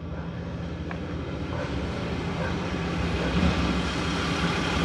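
A motor vehicle's engine running, a steady low hum with broad noise that grows gradually louder.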